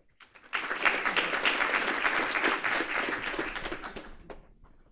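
Audience applauding: many hands clapping together, starting about half a second in and dying away near the end.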